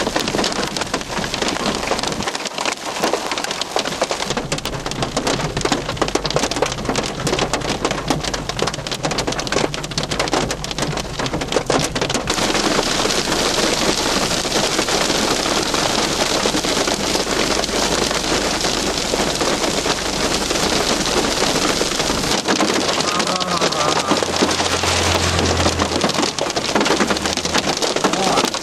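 Hail pelting a vehicle's roof and windows, a dense patter of many small impacts that grows heavier and more even about twelve seconds in.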